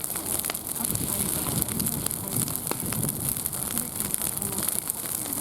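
Campfire burning: scattered sharp pops and crackles over a steady high hiss, with faint muffled talk underneath.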